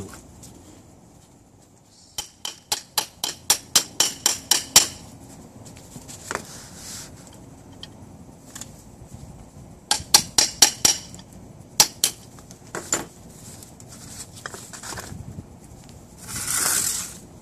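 Sharp metallic taps and clinks of hand tools working the pin out of a steel drum-brake shoe: a quick run of about a dozen taps over some three seconds, another cluster later, then a few single knocks. Near the end comes a brief scraping rustle.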